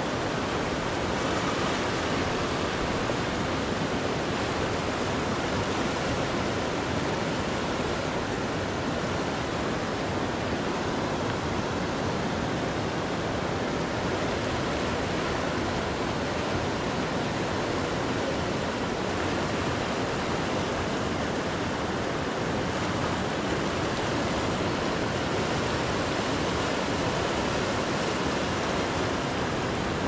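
Fast, turbulent river rushing steadily, an even wash of flowing water with no breaks.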